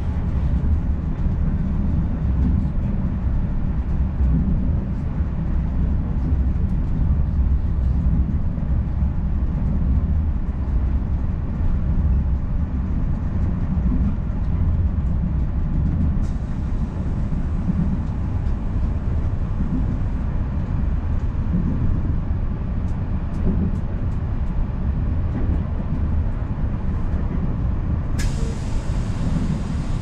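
Passenger train running, heard from inside the passenger car: a steady low rumble of the wheels on the track. A hiss comes in abruptly about halfway through, and a louder, sharper hiss starts shortly before the end.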